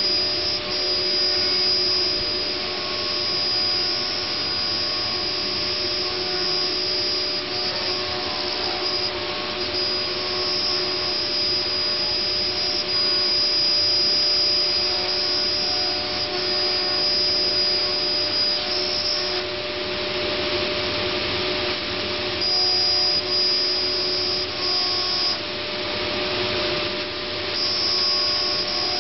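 Multicam 3000 Series CNC router running: a steady rushing machine noise with a high whine that drops away three times and comes back.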